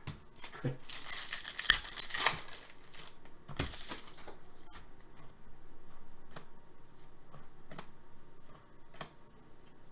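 Hockey card pack being opened by hand: a crinkling, tearing rustle of the wrapper about a second in and again near four seconds, then scattered light clicks and taps as the cards are handled.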